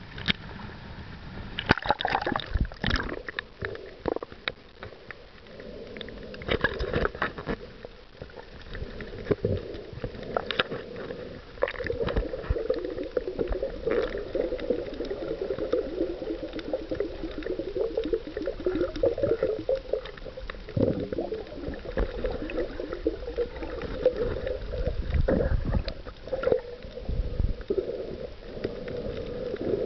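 Muffled underwater water sound picked up by a submerged camera while snorkelling: continuous gurgling and sloshing with a wavering mid-pitched churn, and scattered sharp knocks, the loudest near the start.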